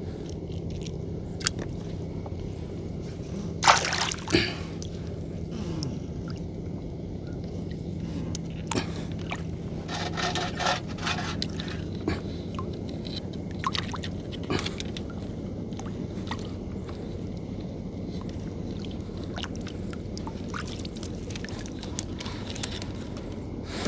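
Water sloshing and gurgling against a small river fishing boat, with scattered knocks and scrapes from handling gear. A steady low hum underneath weakens about halfway through.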